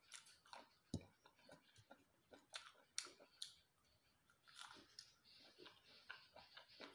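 A person biting into and chewing a piece of soft white food close to the microphone: faint, irregular mouth clicks and smacks, a few a second.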